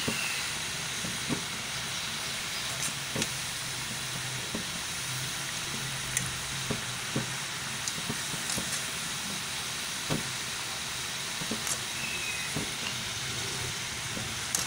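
Biscuit dough deep-frying in hot oil: a steady sizzle with scattered sharp pops and crackles from the bubbling oil.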